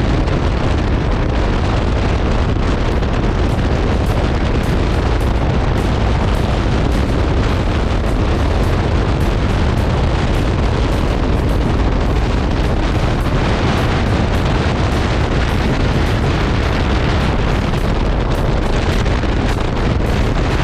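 Heavy wind buffeting on the microphone of a motorcycle riding at speed: a loud, steady, rumbling roar that covers any engine sound.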